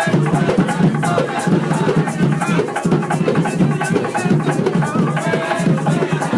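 Background music with a quick, steady percussion beat.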